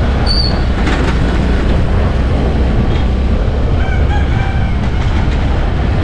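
Steady rumble of wind and road noise from riding in a moving vehicle, with a rooster crowing briefly about four seconds in.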